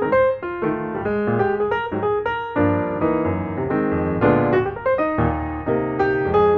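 Background piano music, a run of quick notes over chords at a steady pace.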